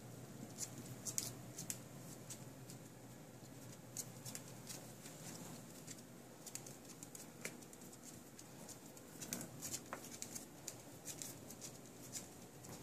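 A small dog's toenails clicking and tapping irregularly on a laminate floor as she walks around, faint, with a few louder clicks.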